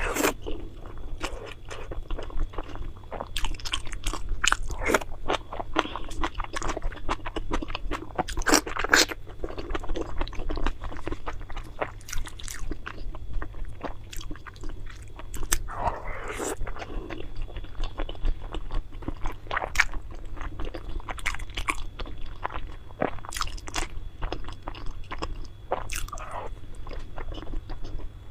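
Close-miked eating: a person biting and chewing food, with many irregular sharp crunches.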